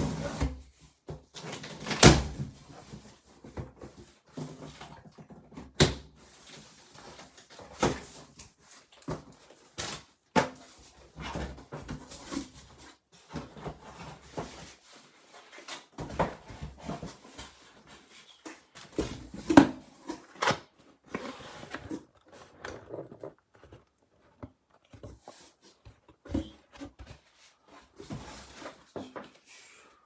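Cardboard boxes and packaging being handled: irregular knocks, thuds and sharp clicks with bursts of rustling between them, the loudest about two seconds in.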